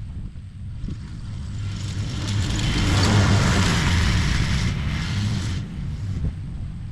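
Exmark X Series mower running under load as it cuts tall, thick grass, its engine and deck growing louder as it passes close by about halfway through, then fading again.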